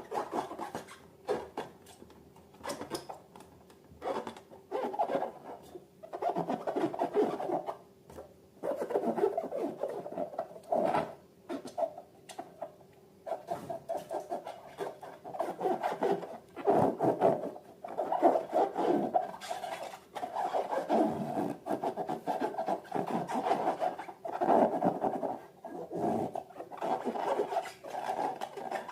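Hands working slime and balloons: irregular bursts of rubbing and squishing, each a second or two long, with short pauses between.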